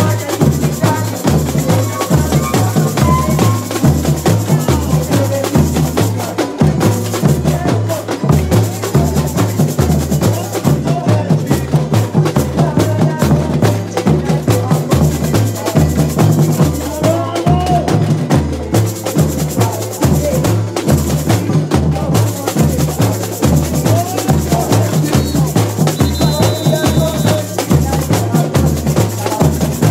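Samba school drum section (bateria) playing a marching samba beat: deep surdo bass drums pulsing about twice a second under rattling snare drums and lighter clacking percussion.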